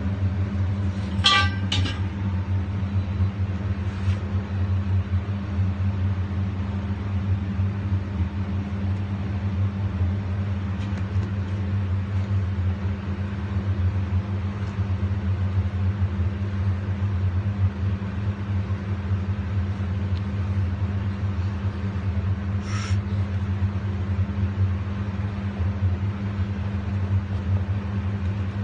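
Steady low machine hum, with a few short clicks: one just after the start, one about four seconds in and one near the end.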